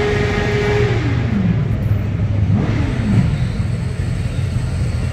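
Motorcycle engines idling with a steady low rumble. One engine is revved and held high for about a second, then drops back to idle, and is blipped once more a little past halfway through.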